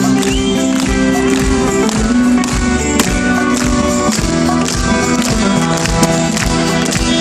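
Instrumental passage of a rock song: band music with sustained chords over a steady drum beat, no vocals.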